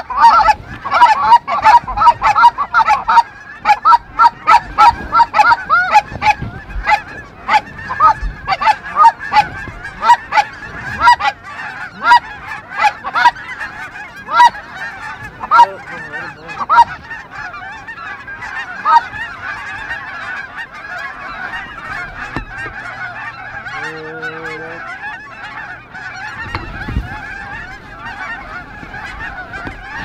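A flock of Canada geese honking overhead, many calls overlapping at first, then easing into a steadier, fainter chorus about two-thirds of the way through.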